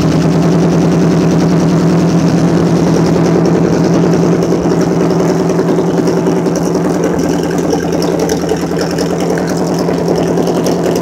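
Freshly rebuilt OMC 3.0 sterndrive engine, a GM-based 3.0-litre four-cylinder, running steadily on its first run after a complete overhaul.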